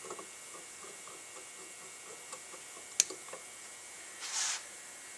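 Screwdriver turning screws into the diaphragm cover of an AC dual-action mechanical fuel pump, a run of faint light ticks, then one sharp click about three seconds in. A short hiss follows about four seconds in.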